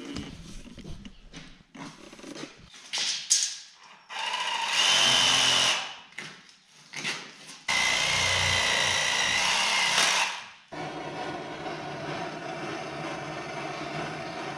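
A handheld power tool runs in two bursts of about two seconds each, with a high whine in each burst. After the second burst a steadier, quieter hum carries on.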